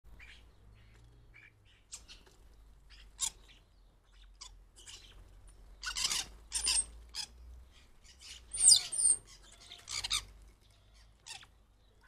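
Common starlings calling: scattered short chirps and clicks, with louder harsh calls bunched between about six and ten seconds in, one carrying a high whistle that slides down.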